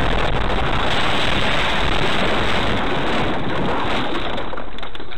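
Loud, steady rushing noise of wind and road roar on a car dashcam's microphone while the car runs off the road and rolls over into dry grass; no single impact stands out.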